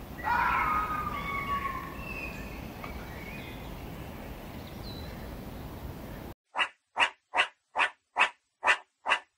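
A spotted hyena call: one pitched cry about a second and a half long that sinks slightly in pitch, over a steady hiss. Near the end the hiss cuts off and a meerkat's short calls begin, repeated evenly a little over twice a second.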